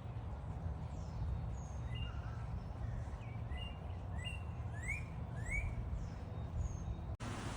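Small birds chirping, a series of short rising chirps over a steady low rumble of outdoor background noise. The sound drops out for an instant near the end.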